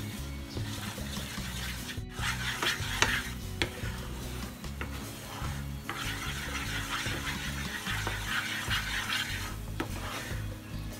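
A wooden spatula stirs and scrapes bubbling condensed-milk and butter caramel in a nonstick pan, with a frying sizzle. The sizzle comes up strongest in two stretches: about two to four seconds in, and again from six to nine seconds in.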